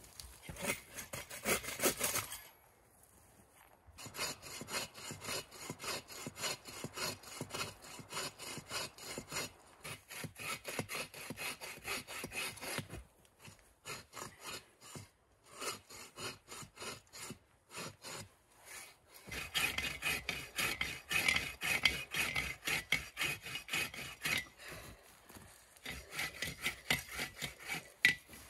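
Hand saw cutting through a fallen conifer log in steady back-and-forth strokes, pausing briefly a couple of times.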